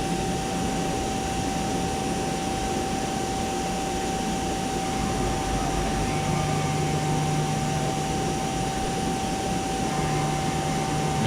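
CNC milling machine running a programmed hole-cutting cycle, giving a steady whine over an even machine noise. A lower hum joins about six seconds in.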